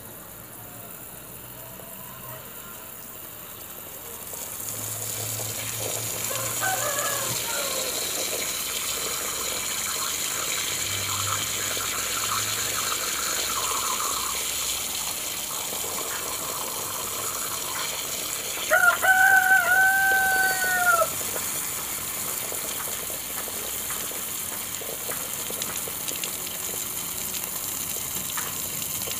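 Water spraying with a steady hiss that starts about four seconds in. About two-thirds of the way through, a rooster crows once, the loudest sound.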